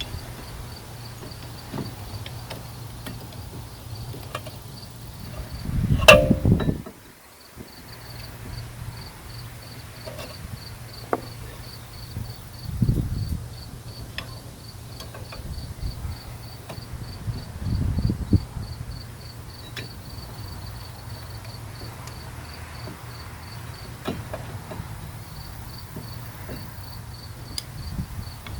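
Insects chirping steadily in an even, rapid pulse over a low hum, with a few thumps and knocks from work on the car. The loudest knock, about six seconds in, rings briefly.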